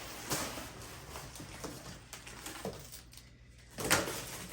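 Unboxing sounds as items are handled and set aside: light rustling with a few scattered knocks, the loudest a sharp knock about four seconds in.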